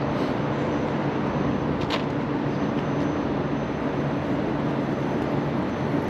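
Steady low hum of an idling engine, with a single sharp click about two seconds in.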